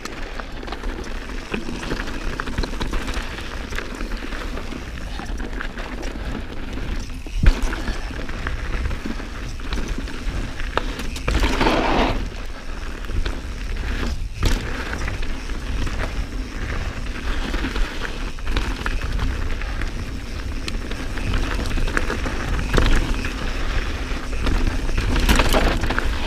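Santa Cruz Bronson mountain bike being ridden over a dirt and rock trail: tyres rolling over the ground with a steady stream of small rattles and knocks, one sharp knock about seven seconds in and a louder hiss around eleven seconds in.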